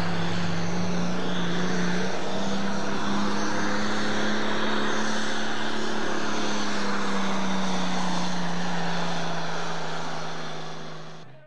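Pulling tractor's diesel engine at full throttle, dragging the weight sled down the track. The note holds steady, sags slightly in pitch later on, then fades out near the end.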